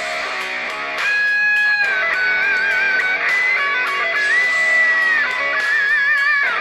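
HTC U11 smartphone's BoomSound speakers playing a guitar-driven song, with a wavering held melody line over strummed guitar; the music gets louder about a second in.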